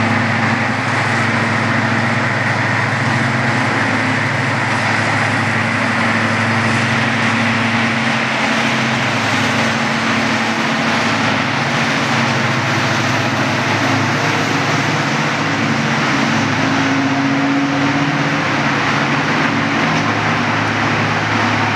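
Class 55 Deltic diesel locomotive D9009's twin Napier Deltic two-stroke engines running loud and steady as it pulls away from the platform.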